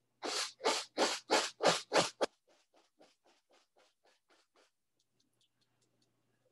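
Paintbrush bristles loaded with oil paint scratching down a stretched canvas in short strokes: seven firm strokes at about three a second, then a run of much fainter, quicker strokes that die away about halfway through.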